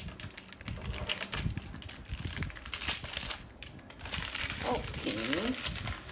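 Quick clicks and taps of gloved hands working on a plastic toy figure's arm and its packaging, with some rustling. Near the end come a few short wavering pitched sounds.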